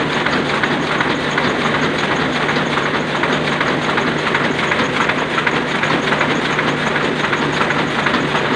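Sakurai Oliver 66 offset printing press running, a steady, dense mechanical clatter with a low hum underneath.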